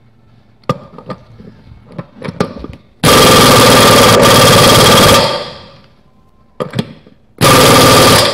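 Air impact wrench hammering lug bolts tight on a 1964 VW Beetle wheel. It runs in two bursts, a long one of about two seconds and a shorter one near the end, with a few light knocks between them as the socket is moved to the next bolt.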